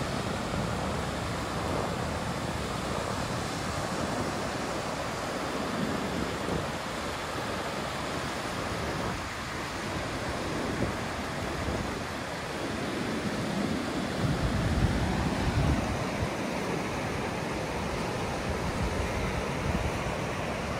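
Ocean surf washing steadily, with wind buffeting the microphone in low rumbling gusts, strongest about two-thirds of the way through.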